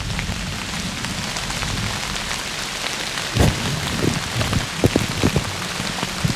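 Light rain falling steadily, with several louder, sharper taps in the second half.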